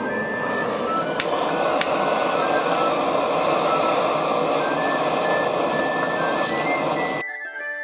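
Handheld gas torch burner hissing steadily as it lights charcoal briquettes, with two sharp clicks about a second in and faint background music. Near the end the hiss stops and flute music comes in.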